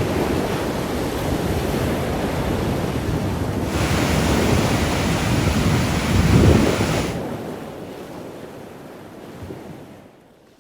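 Ocean surf washing ashore with wind on the microphone: a steady rushing noise, a wave's hissing wash swelling about four seconds in and peaking near the middle, then the sound fading away.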